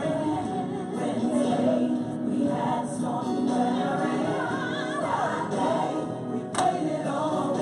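Recorded gospel choir song playing, voices singing over music, with one sharp click about two-thirds of the way through.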